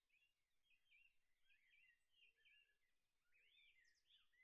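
Near silence, with only traces of very faint, high chirping like distant birds.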